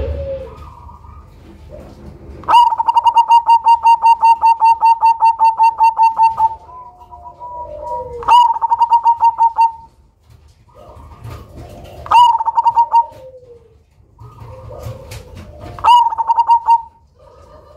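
Perkutut cemani (black zebra dove) cooing in full song: a long phrase of quick, evenly pulsed notes lasting about four seconds, then three shorter phrases at intervals of about four seconds.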